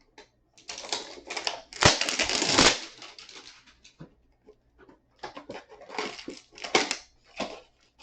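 Cardboard hanger box of trading cards being torn open, with the loudest rip about two seconds in, followed by the crinkling and rustling of the wrapped card pack being handled.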